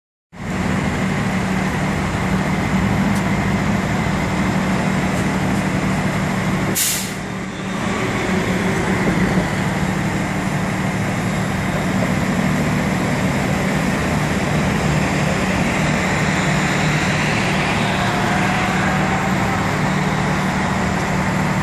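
City street traffic noise: a steady low engine drone from vehicles, with one short, sharp hiss about seven seconds in.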